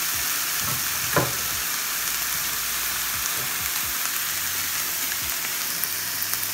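Minced beef and sliced red onion sizzling as they fry in a non-stick frying pan, a steady hiss. A single sharp knock comes about a second in, and a few light clicks near the end.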